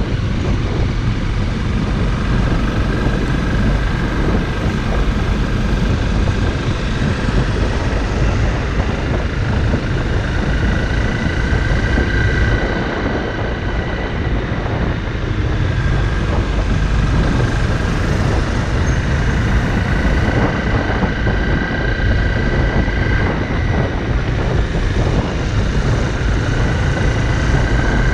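Honda CRF motorcycle being ridden, its engine running steadily under a heavy low rumble of wind and road noise, with the engine's pitch drifting slightly up and down.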